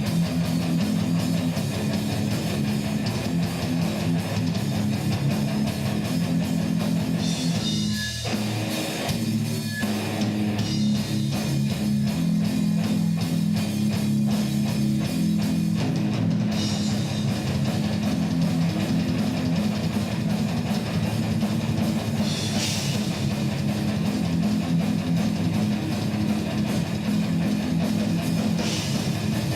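Rock music with distorted electric guitar and drums, dense and steady throughout, with a brief thinning of the texture about eight seconds in.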